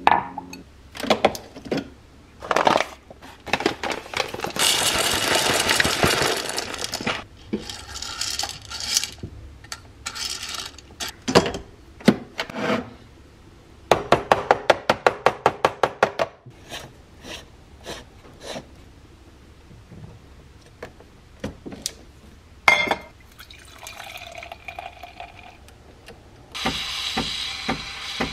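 Espresso-making sounds: clicks and knocks of cup and portafilter handling, a couple of seconds of coffee grinding, a quick run of even tapping clicks, and near the end the espresso machine's steam wand starts hissing as it steams milk in a steel pitcher.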